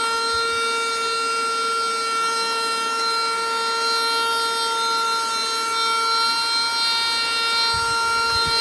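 Xiaomi Mijia cordless stick vacuum's motor running with a steady high-pitched whine made of several fixed tones.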